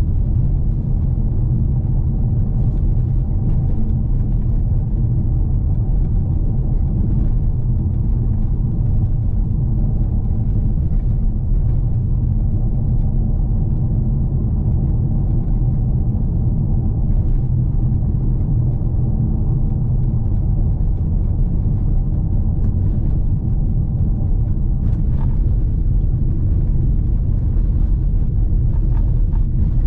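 Audi A6 engine hum and tyre-and-road rumble heard from inside the cabin while driving, steady throughout, with a few faint knocks.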